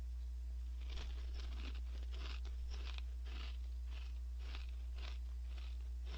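Crunchy Orion Gorebab snack crackers being chewed with the mouth, a crisp crunch about every half second from about a second in. A steady low hum runs underneath.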